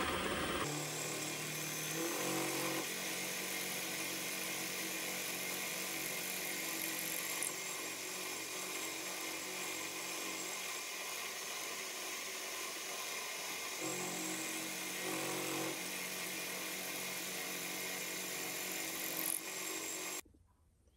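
Milling machine cutting a slot in aluminium with a half-inch end mill: the spindle motor's steady whine under the hiss of the cut, which stops suddenly near the end.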